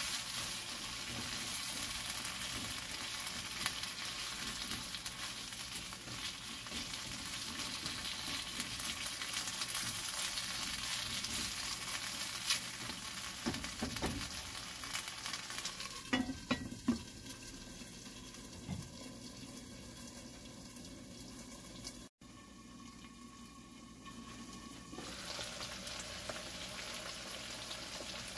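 Diced potatoes and red onion sizzling in oil in a wok, stirred with a wooden spatula that scrapes and taps the pan. The sizzle grows quieter in the second half, with a brief dropout about two-thirds of the way through.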